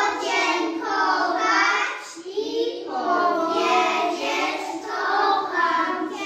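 A group of young boys singing a song together, with a short break between phrases about two seconds in.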